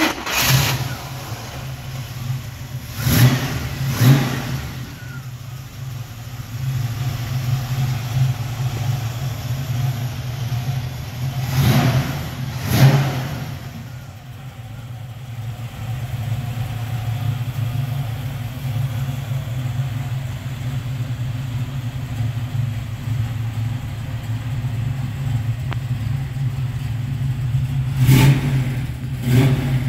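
1967 Chevrolet Chevelle SS's V8 idling steadily, blipped twice in quick succession three times: a few seconds in, about twelve seconds in, and near the end.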